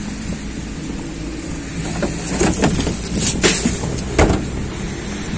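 Footsteps scuffing and crunching on snow-covered paving over a steady low rumble of street traffic. A few louder, uneven scuffs come between about two and four seconds in.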